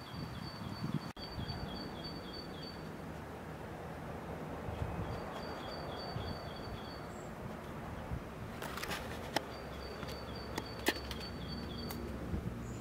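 Runs of short, high chirps from an animal, about four a second, stopping and starting again every few seconds over a steady outdoor background. A few sharp clicks come in the second half.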